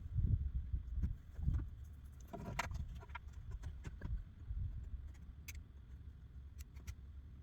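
Handling noise from work on a plastic bumper: low bumps and rumble with a few light clicks and taps, one sharper tap about two and a half seconds in.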